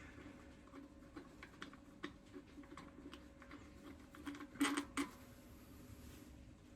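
Faint, scattered light clicks and taps of hand tools and small parts being handled during engine disassembly, with two louder clicks about four and a half and five seconds in.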